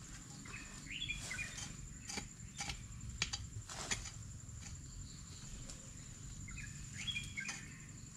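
A hand digging tool strikes into soil in a few irregular dull knocks, over a steady high insect drone. A bird gives a short chirping call twice, about a second in and about seven seconds in.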